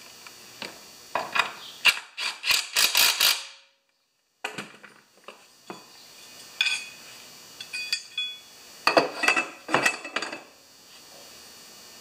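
Metal tools and small hardware clinking and rattling in three short irregular clusters, with no drill running.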